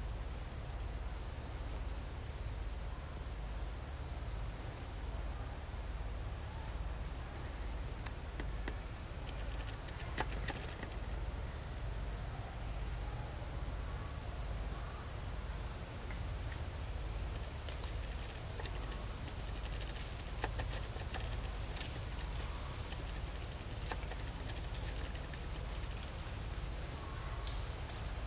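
Chorus of insects in the trees: several high-pitched steady trills that pulse about once a second, over a low steady rumble, with a few faint clicks.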